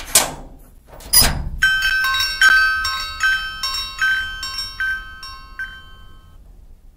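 Two short clattering knocks, then a small metal bell rung over and over, about a dozen bright strikes two or three a second, dying away after a few seconds.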